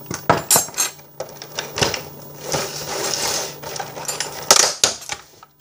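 Clear plastic egg carton being opened and handled: a string of sharp plastic clicks and crackles, with a longer crinkling stretch around the middle and a few loud snaps near the end.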